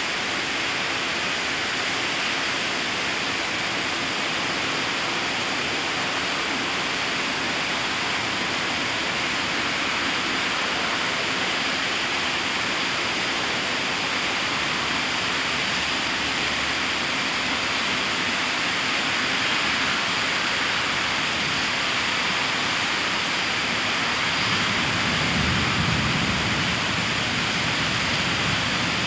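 Steady rain falling, an even hiss with no let-up. A low rumble swells briefly near the end.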